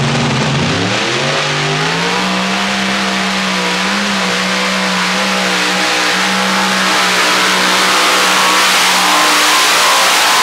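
Modified pulling tractor's multiple supercharged engines at full throttle under load on the sled, the engine note climbing over the first couple of seconds and then holding steady and loud.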